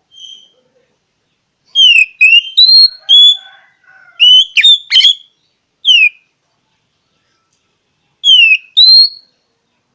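Oriental magpie-robin (kacer) singing: loud, clear whistled notes that slide down and up, in four short phrases separated by pauses.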